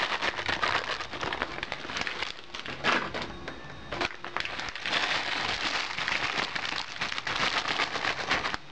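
Dense, continuous crackling and rustling handling noise from things being moved and handled close to the microphone.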